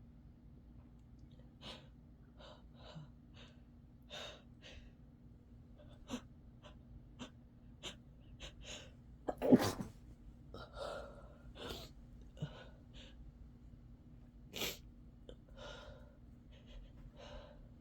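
A sick person sneezing repeatedly, with many short breaths between the sneezes. The loudest sneeze comes about nine and a half seconds in.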